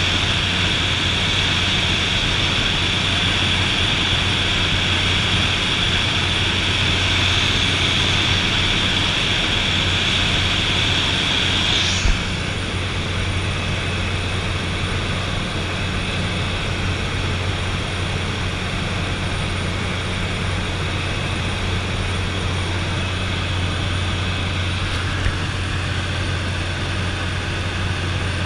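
Cabin noise of a de Havilland DHC-3 Otter turboprop in flight: the steady drone of its turbine engine and propeller. A high whine in the noise stops abruptly with a click about twelve seconds in, and the drone is slightly quieter after that.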